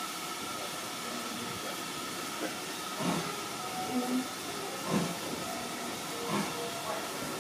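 Steady hiss of steam from a steam locomotive as the train creeps along a station platform. Faint voices come in from about three seconds in.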